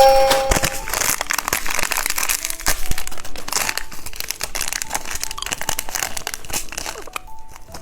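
Plastic candy wrapper crinkling as it is handled and opened, a dense, irregular crackle throughout.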